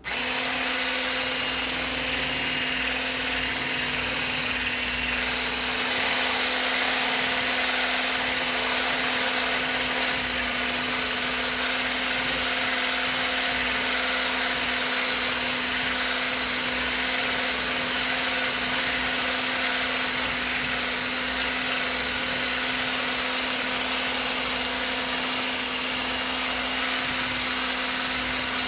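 Mueller Ultra-Stick immersion hand blender switching on and running steadily with an even motor hum, whipping a homemade lotion mixture in a stainless steel bowl.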